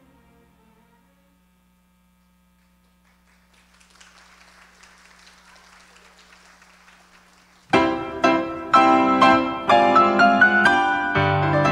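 The end of a string piece fades out, leaving near quiet with a faint hiss. About eight seconds in, solo piano music starts suddenly with clearly struck, ringing notes.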